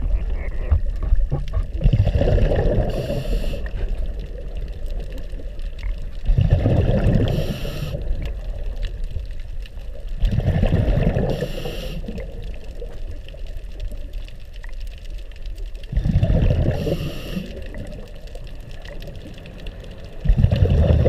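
A diver breathing underwater, probably through a scuba regulator: a low burble of exhaled bubbles about every four to five seconds, each followed by a short hiss as the next breath is drawn.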